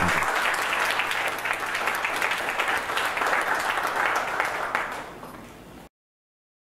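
Audience applauding, the clapping fading toward the end before cutting off abruptly.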